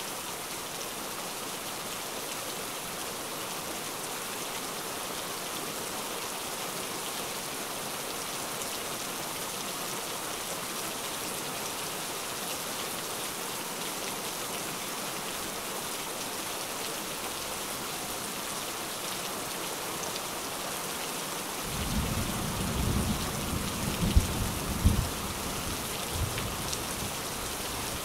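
Steady rain falling, with a low rumble of thunder rolling in about three quarters of the way through. The thunder has two sharp cracks at its loudest, then fades.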